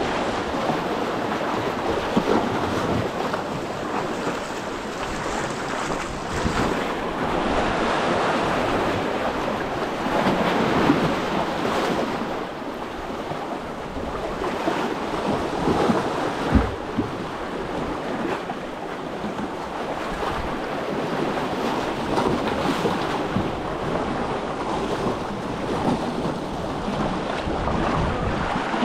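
Sea waves washing in steadily, swelling and easing, with wind buffeting the microphone. A single sharp thump comes about two-thirds of the way through.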